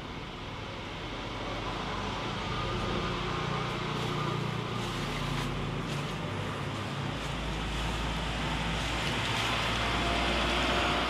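Road traffic: a motor vehicle's engine and tyres, a steady rumble that grows louder and is loudest near the end.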